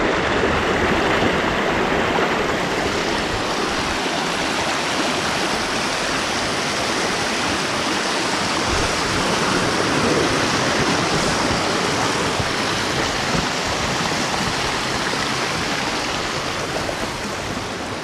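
Shallow mountain stream rushing over rocks: a steady, even rush of water that starts and stops abruptly.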